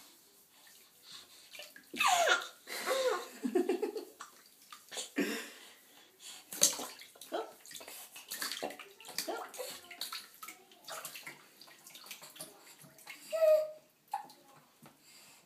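Bath water splashing in short, irregular bursts as a baby kicks and slaps in a bath seat, with the baby's voice a few times, about two seconds in and again briefly near the end.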